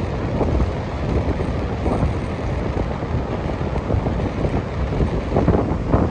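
Strong gusty wind blowing across the microphone, a rough low rumble that swells in gusts, strongest near the end.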